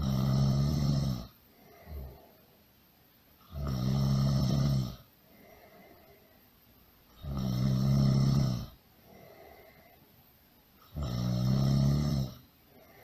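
Loud snoring: four long snores about every three and a half to four seconds, each lasting over a second, with faint breaths out between them.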